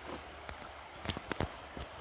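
Shallow river running over stones, with a few light, sharp knocks or clicks in the second half.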